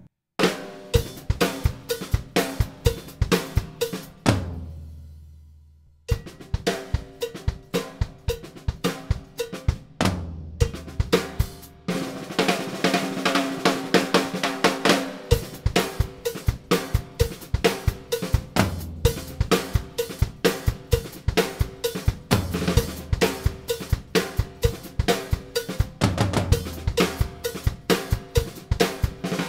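Drum kit playing a cowbell groove: an LP cowbell over hi-hat, snare and bass drum, with the floor toms struck in place of the china cymbal. About four seconds in the playing stops and a low drum rings out and fades, then the groove starts again and runs on.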